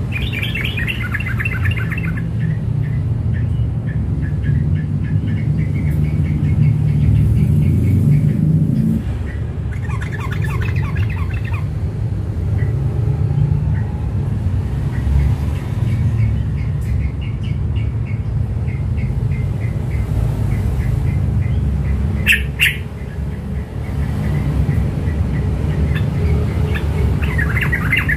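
Yellow-vented bulbul chirping in several short, rapid runs of high notes, over a steady low hum. A single sharp click about three quarters of the way through.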